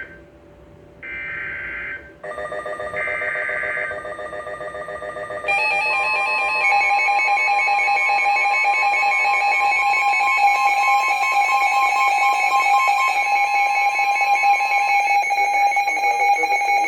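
Emergency Alert System weather radio alert: two short buzzy data bursts of the digital alert header, then, from about two seconds in, a loud pulsing electronic alert tone. It steps up in loudness about five seconds in and holds steady, signalling that a severe thunderstorm warning follows.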